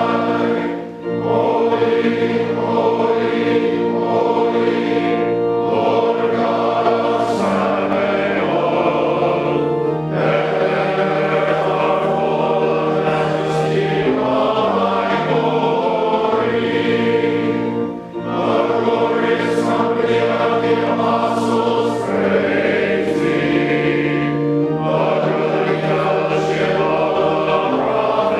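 Choir singing sacred music in long held chords, with short breaths between phrases about a second in and again around eighteen seconds in.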